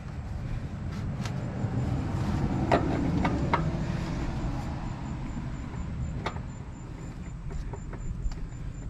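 New oil filter being handled and knocked lightly against metal parts as it is worked up into place under the engine: three clicks in quick succession about three seconds in and another about six seconds in, over a steady low rumble.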